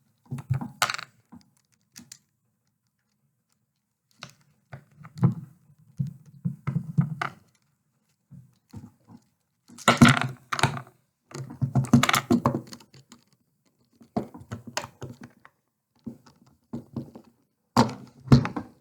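Lego bricks and parts clicking, knocking and clattering as they are handled and snapped together, in irregular bursts with short pauses between. The audio is played back sped up.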